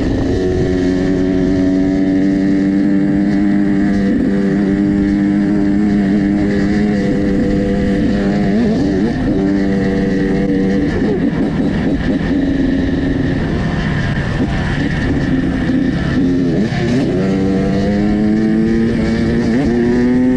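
Off-road dirt bike engine running under throttle along a trail, holding a steady pitch. Its pitch drops and climbs back about nine seconds in, then dips again and rises steadily near the end.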